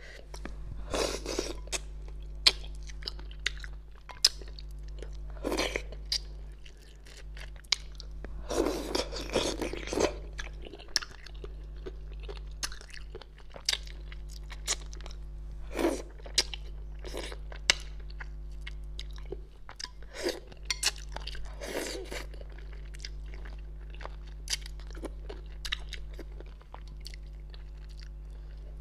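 Close-miked chewing and mouth sounds of eating spicy fish head: irregular wet smacks and clicks, with a few longer noisy stretches of sucking at the meat. A steady low electrical hum sits underneath.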